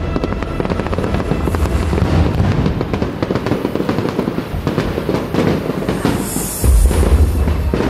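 Fireworks display: a dense, rapid crackling of many small bursts going off together. Heavier low booms start about seven seconds in.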